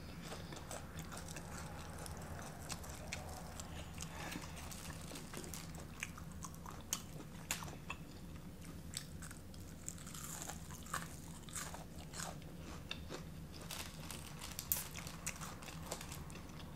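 A person chewing and biting fast food close to the microphone, with many small, irregular crunchy clicks, over a faint steady low hum.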